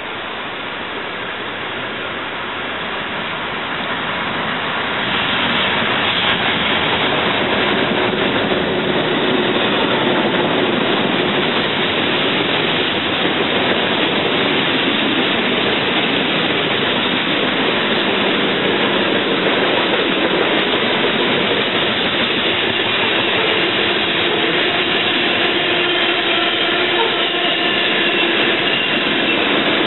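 Freight train of covered hopper cars passing close by on the main line, a steady rumble of steel wheels on rail. It grows louder over the first five seconds as the train arrives, then holds steady, with a faint whine near the end.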